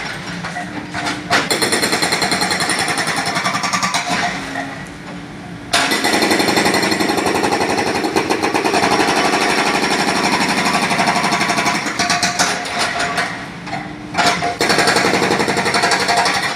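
Hydraulic breaker on a Kobelco SK75 mini excavator hammering concrete with rapid repeated blows, in three runs broken by two short pauses where the machine's engine is heard.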